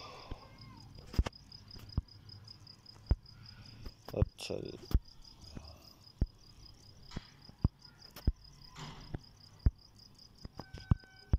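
Sharp taps on a phone's touchscreen, picked up by its own microphone, about one a second and irregular, over a steady, rapid, high-pitched chirping.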